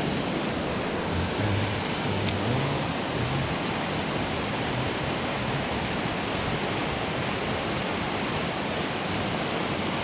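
Fast-moving creek current rushing steadily over rocks and riffles.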